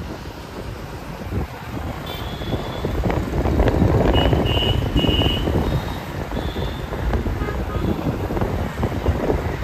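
Wind buffeting the microphone and engine and road noise from a motorbike riding in city traffic, louder from about three seconds in. A few short high beeps sound from the traffic partway through.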